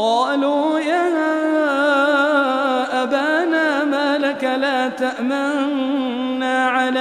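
A man's voice chanting Quran recitation in a long, drawn-out melodic phrase, with ornamented, wavering pitch and hardly a break.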